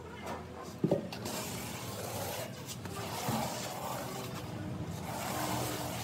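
Tile adhesive mortar poured from a bucket and then spread with a notched steel trowel on a concrete floor, making a rough, scraping rasp. A short knock about a second in.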